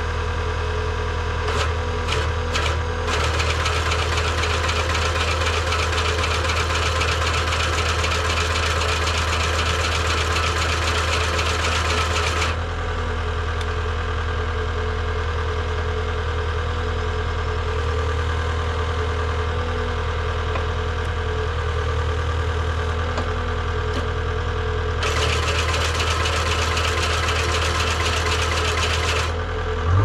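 Tracked skid steer's engine running steadily while the hydraulic sickle bar mower's cutter bar runs unloaded, its knives clattering rapidly. The clatter starts about two seconds in, stops about twelve seconds in, and runs again for a few seconds near the end.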